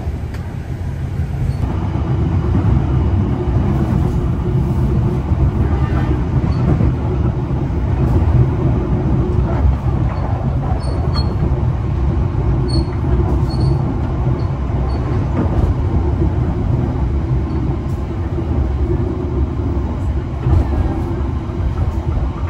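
Steady low rumble of a locomotive-hauled passenger train running along the track, heard from inside an economy coach, with a constant hum and a few light clicks.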